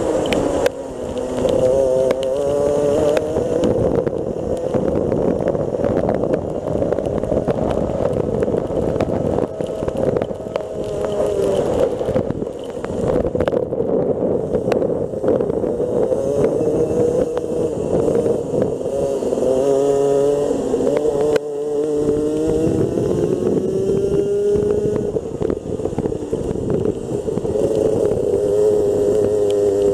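Rotax Senior Max 125cc single-cylinder two-stroke kart engine heard onboard at racing speed, its pitch falling off the throttle into corners and climbing again as it pulls out and down the straights, several times over.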